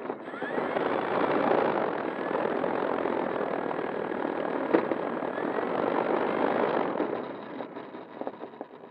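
FMS Ranger RC plane's electric motor and propeller running steadily while the plane rolls on asphalt, heard from a camera mounted on the plane, with scattered clicks. The sound eases off about seven seconds in.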